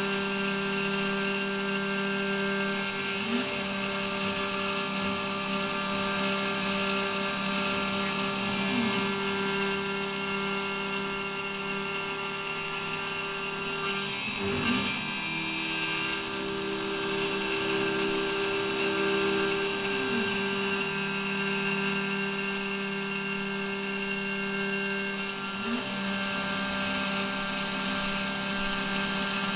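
Desktop CNC milling machine (model 7073) milling aluminium: the high-speed spindle runs with a steady, high-pitched whine over the chattering cut of the end mill. The pitch sweeps briefly every five or six seconds.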